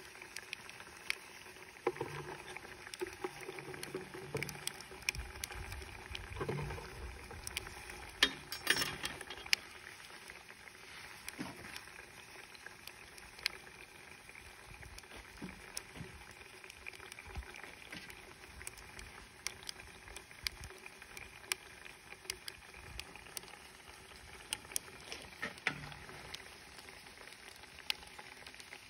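Liquid nitrogen boiling off around a plastic ice-cube tray: a quiet, steady sizzle scattered with small irregular crackles and ticks.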